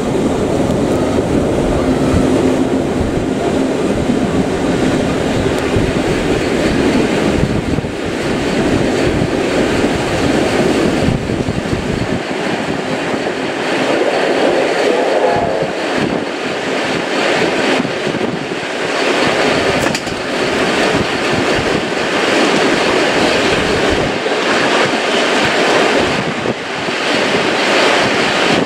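Heritage steam train running on the line, a loud continuous noise; the deepest part of its rumble drops away about twelve seconds in.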